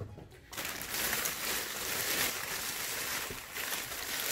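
Unboxing packaging being handled: a continuous crinkling rustle that starts about half a second in.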